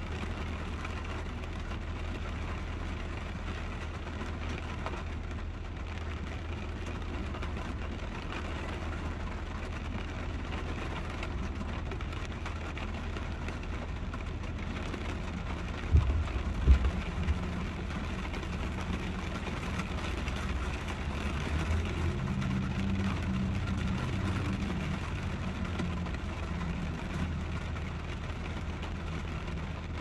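Heavy rain drumming on a truck's hood and windshield, heard from inside the cab over the steady low hum of the truck's engine idling. Two low thumps come about halfway through.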